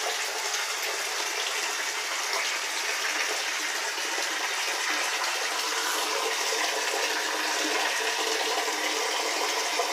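Steady rush of water running into a bathtub.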